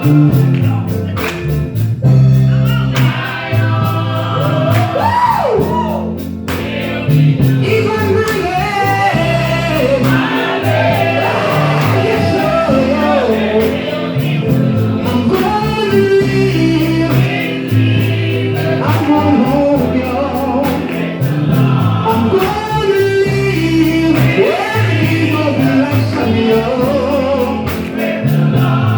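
Live gospel group singing: a lead voice with backing harmony singers over a band with a moving bass line and a steady beat.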